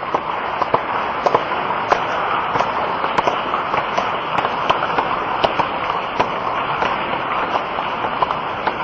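A large crowd applauding: dense, steady clapping from many hands, with single sharper claps standing out.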